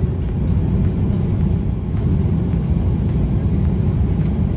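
Airbus A350-1000 cabin noise in the climb: a steady, loud, low rumble of engines and rushing air heard from an economy seat, with a few faint ticks.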